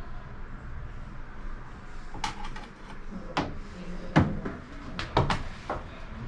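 A series of sharp knocks and clicks, like hard parts or panels being handled and set down: one about two seconds in, then more at irregular intervals, several close together near the end.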